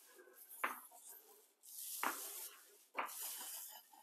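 A 9-inch paint roller being pushed through wet black epoxy primer on a concrete floor: a sticky hissing swish with each stroke, three strokes in all. Short sharp clicks fall between the strokes.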